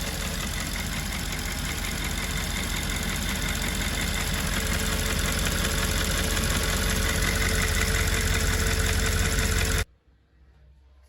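Audi S5's 4.2 V8 engine idling with a fast, even ticking on top of the engine sound, the ticking noise of a faulty fuel purge valve. The sound cuts off suddenly near the end.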